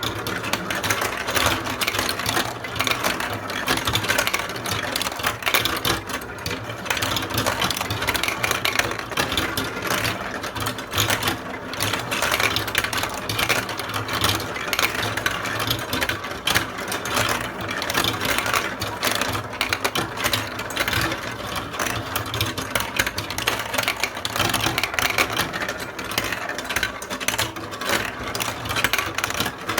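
Many small balls rolling and clattering through a building-block marble run track: a dense, continuous rattle of quick clicks.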